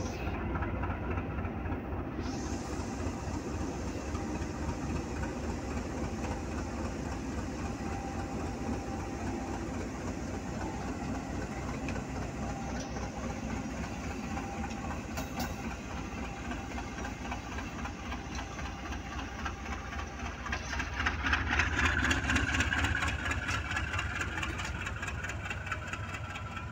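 AGE-30 diesel-electric locomotive chugging as it pulls away from the station, its engine giving a steady low pulsing beat. The sound swells louder for a few seconds about 21 seconds in.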